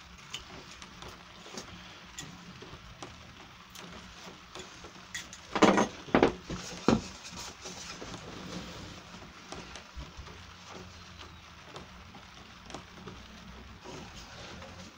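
Handling noise of a plywood template and a utility knife on a metal saw table: light taps and scrapes, with three loud knocks in quick succession about six seconds in as the pieces are set down.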